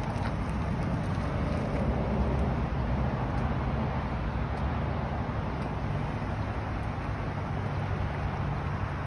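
Steady low vehicle rumble with an even hiss over it, unchanging throughout.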